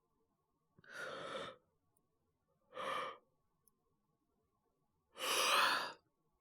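A man's voice breathing out heavily three times, the first and last about a second long, the middle one shorter, the last the loudest. These are the acted, laboured breaths of a man sick with a fever and a cough.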